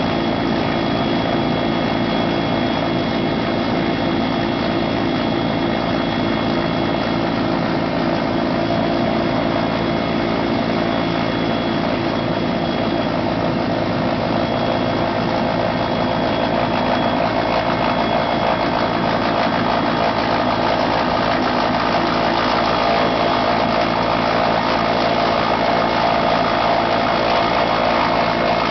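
Helicopter running steadily: a constant engine drone with a thin, high turbine whine, growing slightly louder over the last several seconds.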